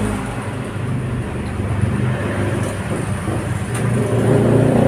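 Motor vehicle engine running steadily with street traffic noise, growing louder near the end. A light clink of a spoon or fork on a plate comes about three and a half seconds in.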